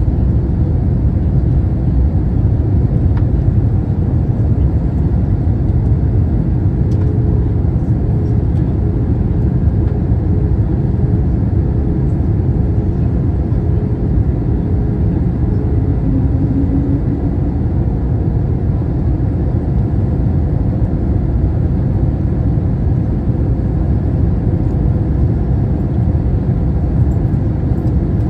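Steady airliner cabin noise on approach to landing: a loud, even low rumble of engines and rushing air, with a faint steady hum running through it.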